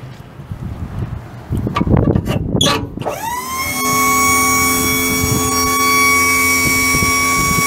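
Knocking and clattering, then the 12-volt electric hydraulic pump of a Thieman TT12 truck lift gate starts about three seconds in with a quick rising whine. It then runs at a steady pitch for about five seconds.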